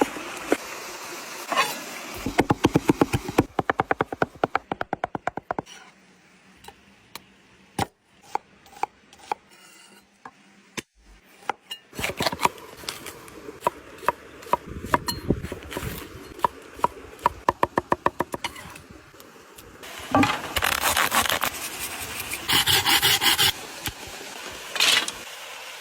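Food being prepared on a wooden board: runs of quick, even knife strokes, with rubbing and scraping between them.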